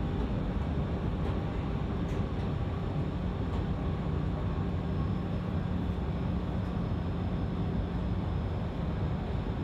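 Berlin U-Bahn IK18 train heard from inside the car while running: a steady rumble of wheels on rail and running gear, with a faint hum partway through.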